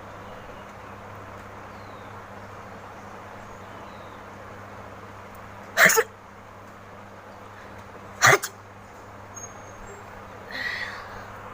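A woman sneezing twice, each a short, sharp, loud burst, about two and a half seconds apart, followed near the end by a fainter breathy sound, over a steady low background hum.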